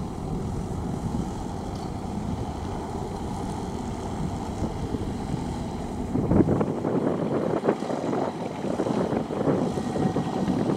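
Kubota V2403 turbo four-cylinder diesel on a ride-on paddy tiller, running steadily as the machine tills wet rice-field soil, with wind noise on the microphone. The engine sound grows louder and busier about six seconds in.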